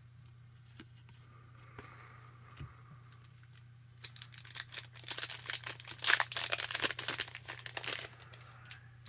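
Trading card pack wrapper being torn open and crinkled, a dense crackling that starts about four seconds in and lasts about four seconds, after a few faint clicks of cards being handled.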